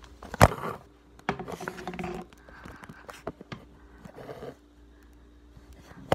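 Handling noise from a phone or camera being grabbed and swung around: a sharp knock about half a second in, then scattered bumps, scrapes and rustling.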